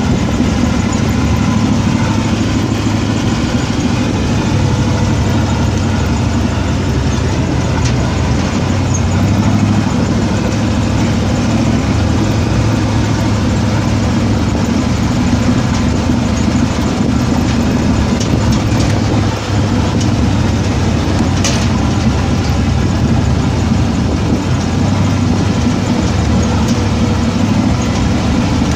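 A vehicle's engine running steadily at low trail speed with rough dirt-road and rattle noise, heard from inside the cab as a steady low hum. One sharp click about two-thirds of the way through.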